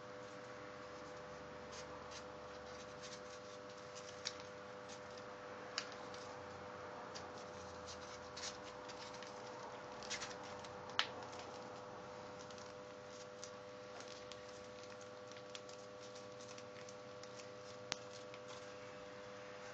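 Folded paper being pinched and handled: faint scattered crinkles and small clicks, the sharpest about eleven seconds in, over a steady low hum.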